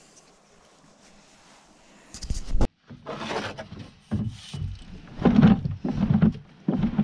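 Kayak paddling: a run of paddle strokes from about three seconds in, with splashes and knocks of the paddle against the plastic hull roughly one to two a second, after a quiet first half.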